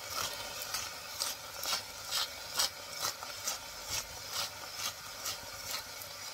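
Salt grinder being twisted over a pot, making about two even grinding strokes a second.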